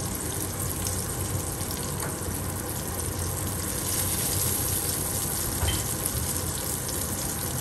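Sea bass fillets sizzling steadily in hot oil in a frying pan.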